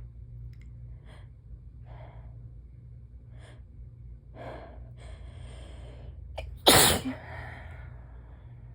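A person building up to a sneeze with several short, catching inhales and a longer drawn-in breath, then one loud, sudden sneeze about two-thirds of the way in, part of a sneezing fit.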